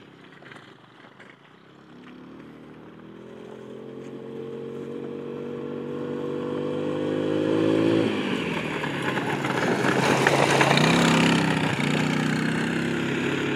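Keeway 150 quad's engine, faint at first while the quad is far off, then growing louder with its pitch rising slowly as it rides toward the listener. About two-thirds of the way in the engine note drops as the throttle eases, and near the end the quad is close by and running loud and rough as it turns on the dirt.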